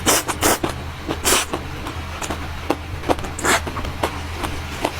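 Close-miked eating sounds: crunching and chewing a mouthful of green papaya salad, with irregular crackly bites and wet mouth clicks, the loudest in the first second and a half and again about three and a half seconds in. A steady low hum lies underneath.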